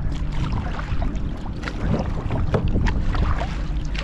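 Kayak paddle strokes: the blade dipping and splashing, with irregular drips and water lapping at the hull, over a low rumble of wind on the microphone.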